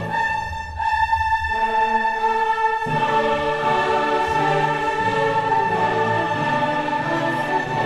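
Background music: an orchestral piece with choir, long held chords that shift about three seconds in.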